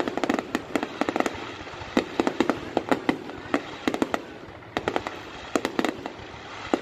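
Fireworks display: many sharp, irregular bangs and cracks one after another over a steady background rumble, thinning briefly about four seconds in before picking up again.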